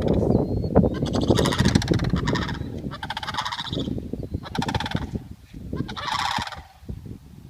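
Sandhill cranes giving their loud rolling, rattling calls in about four bursts, each under a second long, several birds at once.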